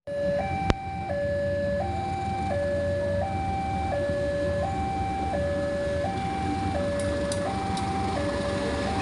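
Level-crossing warning alarm sounding a steady two-tone signal, alternating low and high notes about every three-quarters of a second, over the rumble of an approaching diesel locomotive. A few sharp clicks come near the end as the locomotive reaches the crossing.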